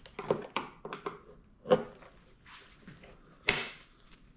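Plastic clicks and knocks as a headlight retaining clip is worked loose by hand. A few light taps come first, then a louder knock, and a short harsh scrape about three and a half seconds in.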